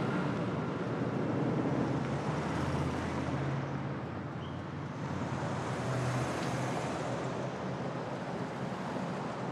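City street traffic: cars driving past, a steady wash of road noise with a low engine hum that swells slightly as vehicles go by.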